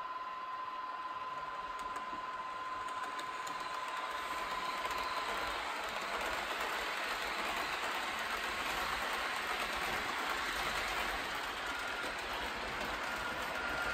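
Model electric train running along the layout's track, its rolling noise growing louder from about three seconds in as it passes. A steady high tone fades out about five seconds in.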